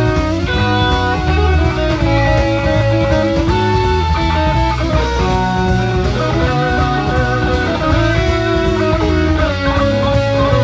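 Instrumental passage of a 1970s prog-rock song, electric guitar playing held melody notes over bass, from a 1975 reel-to-reel tape recording.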